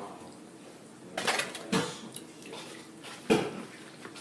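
Tableware clattering at a meal: a few separate knocks and clinks, the sharpest about three seconds in.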